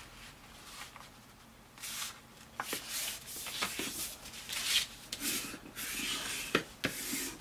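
Hands rubbing and pressing folded construction paper along the fold to set the crease: a run of dry swishing rubs that starts about two seconds in, with a few light knocks.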